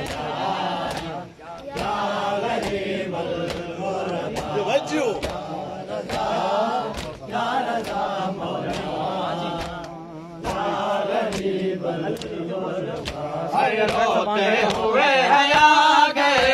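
A crowd of men chanting a mourning noha in unison. Rhythmic chest-beating slaps of matam fall about every two-thirds of a second.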